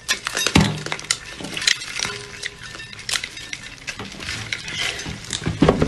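Irregular clicking and scratching of small live crabs in a ceramic bowl as they are handled and picked out by hand, with a couple of dull thumps about half a second in and near the end.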